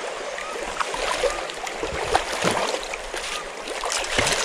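Shallow stream water running over stones and splashing as someone wades through it, with a trout thrashing and splashing in a landing net near the end.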